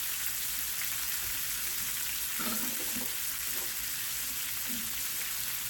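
Green bell peppers and onion wedges frying in hot pan drippings in a stainless-steel skillet, a steady sizzling hiss.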